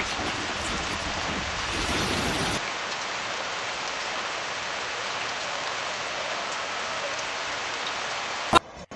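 Heavy rain falling, a steady hiss with low rumble in the first two and a half seconds that then drops away. A single sharp click near the end.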